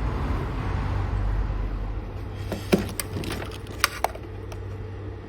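Steady low hum under faint background noise, with a handful of short, light clicks a little past the middle.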